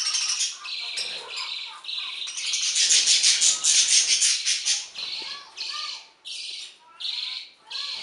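Budgerigar chick giving harsh, raspy squawking calls: a loud run of rapid chattering pulses in the middle, then a string of short separate squawks about every half second.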